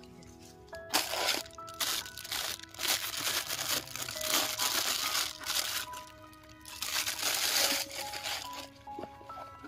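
Newspaper packing crumpling and a plastic bag crinkling as they are handled and pulled out of a small cardboard box, in loud uneven rustles from about a second in until near the end. A simple melodic background music track plays under it.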